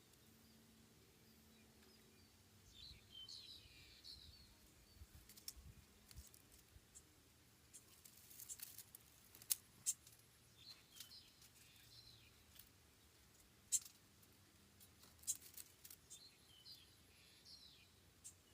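Faint bird chirping in three short bouts, roughly three, ten and sixteen seconds in. Scattered sharp clicks come between them, the loudest near the middle.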